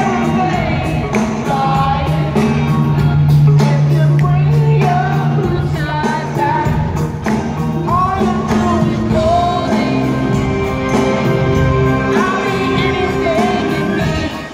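Live rock band playing with a sung lead vocal over bass and drums. It comes through the concert PA and is picked up from far back in the audience.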